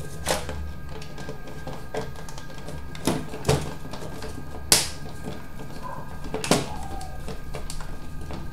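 Scattered clicks and knocks, about half a dozen, the loudest a little under five seconds in, as screws are fitted into a DVD player's chassis.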